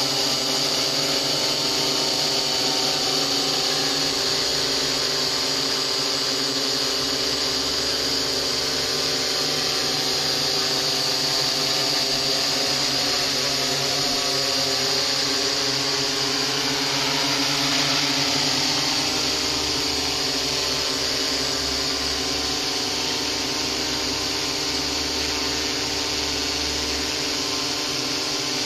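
XAircraft X650 quadcopter's electric motors and propellers whining steadily while it hovers close by: a dense buzz with several held tones that swells slightly about two-thirds of the way through.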